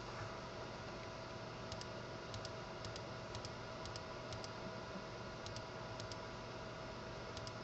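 Clicking at a computer while stepping from page to page: about nine short, sharp double clicks, each a press and release, mostly about half a second apart with a pause about halfway through. A steady faint hum and hiss lies under them.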